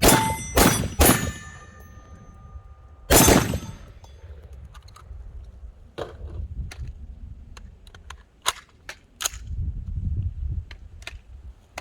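Gunshots at a shooting range: three fired in quick succession, then a fourth about two seconds later, each followed by a metallic ringing like a struck steel target. Smaller clicks and knocks follow.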